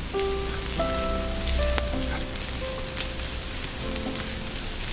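Onions and garlic sizzling and frying in hot oil in a pan, with scattered small pops. Soft background music with held notes plays underneath.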